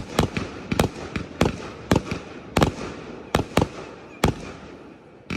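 Aerial firework shells bursting in a rapid, irregular series of sharp bangs, about two or three a second, each trailing off briefly. The bangs pause for about a second before one more near the end.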